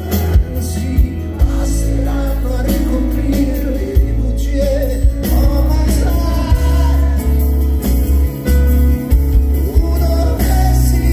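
Live concert music: a man singing over acoustic guitar, with a heavy bass underneath, heard from the audience.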